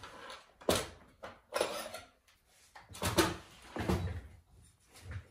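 Steel files knocking and rattling against each other and the wood of a workbench drawer as one is picked out, in about five short clatters.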